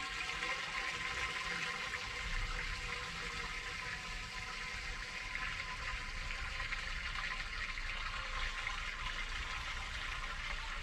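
Pooled rainwater running steadily down a drain with a continuous watery rush.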